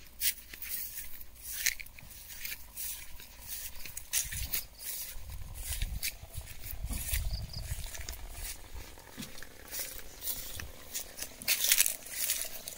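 Footsteps and rustling through grass and weeds: irregular short crackles and swishes, with a low rumble in the middle.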